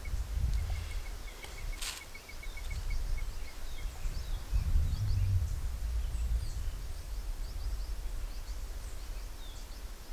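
Outdoor field ambience: an uneven low rumble on the microphone is the loudest sound, with a rapid insect trill in the first few seconds and faint, scattered high bird chirps. One sharp click about two seconds in.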